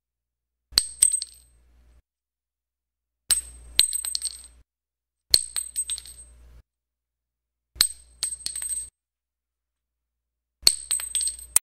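Spent shell casings dropping onto concrete, clinking and bouncing with a bright metallic ring. Five separate drops, each a sharp first strike followed by a few quicker bounces.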